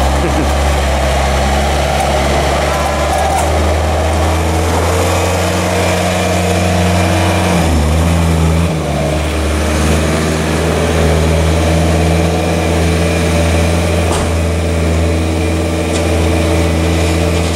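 Engine of an old Chevy truck running steadily, with a brief change in pitch about eight seconds in.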